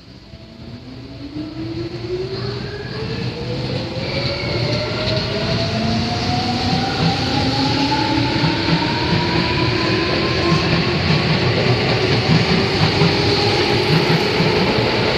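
A Tobu 9000 series electric commuter train pulling away from the platform, its traction motors whining in a pitch that rises steadily as it accelerates. The wheels rumble and clatter, growing louder as the cars pass close by.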